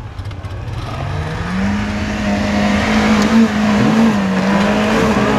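Suzuki Jimny's engine revving up about a second in and held at high revs under load as the small 4x4 climbs a steep, muddy slope.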